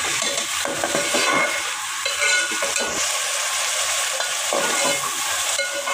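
Sliced onions sizzling in hot oil in a pan, stirred with a metal ladle that scrapes against the pan now and then. The onions are being fried to a light brown.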